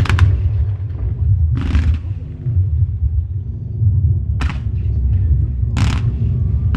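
Fireworks display: a continuous low rumble of shells going off, with a sharp crack about a second and a half in and two more near the end.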